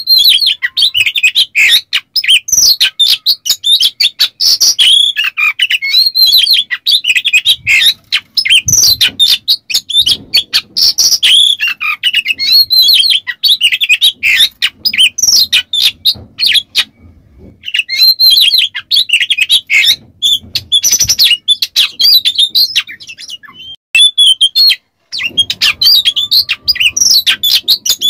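Oriental magpie-robin singing a fast, nearly unbroken run of whistled and scratchy notes. The song pauses briefly twice, once a little past the middle and once near the end.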